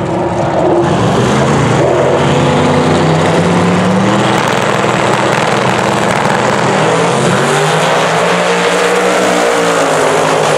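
Two drag race cars, one the Mazda RX7 with a twin-turbo big-block Chevy V8, running loud on the start line, then launching and accelerating hard down the strip.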